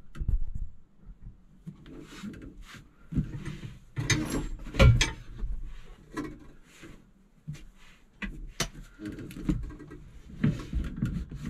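Handling noises of screwing an armrest onto a tractor seat's plastic shell: irregular clicks, knocks and rustles from the seat and a hand ratchet, with a heavier thump about five seconds in.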